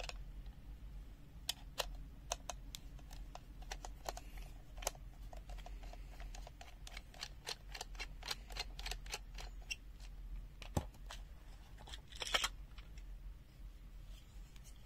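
Irregular light clicks and taps of a small plastic clamp-meter case being handled and worked open by hand, its screws taken out.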